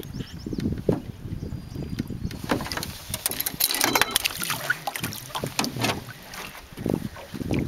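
A large northern pike thrashing in a landing net beside an aluminium boat. Water splashes, and the net and fish knock against the hull in a busy, irregular run of splashes and knocks from about two seconds in.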